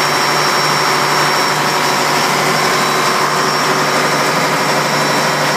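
MaK 6MU551AK six-cylinder marine diesel engine running steadily and loudly on a test run after a rebuild. The exposed valve gear adds a dense mechanical clatter.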